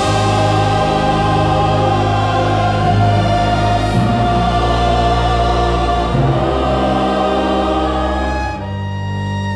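Slow orchestral music with a sustained choir and held low bass notes; about eight and a half seconds in the choir thins out and a bowed string line comes through.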